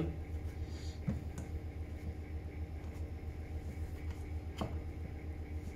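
Hands working the parts of a plastic backpack sprayer: quiet handling noise with a few soft clicks, over a steady low hum.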